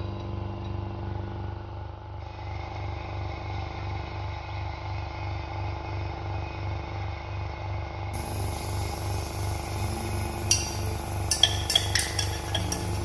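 Vacuum pump running with a steady pulsing hum, drawing suction through a sintered glass crucible filter. In the last few seconds there are several sharp glass clinks as the beaker knocks the filter funnel.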